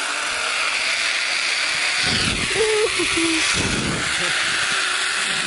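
Zip-line trolley pulley running fast along the steel cable, a steady whirring hiss whose pitch falls once about two seconds in, with wind buffeting the microphone.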